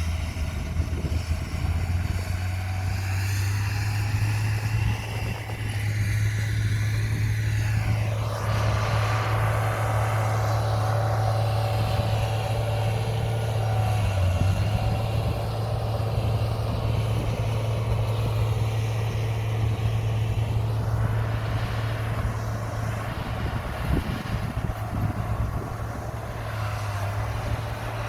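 Heavy diesel engine of a Komatsu bulldozer running under load with a steady deep drone. Its higher tones shift in pitch about eight seconds in and again about two-thirds of the way through, as the load changes.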